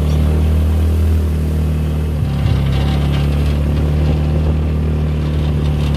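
A motor vehicle's engine running steadily at a constant pitch, with a couple of light clicks about two and a half seconds in.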